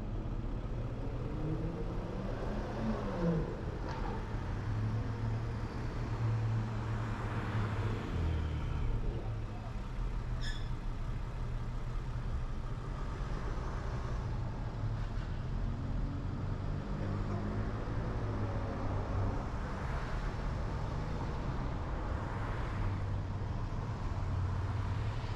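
Car driving in traffic: a steady low road and engine rumble, with the engine's pitch rising and falling twice as it speeds up and slows. A brief high squeak about ten seconds in.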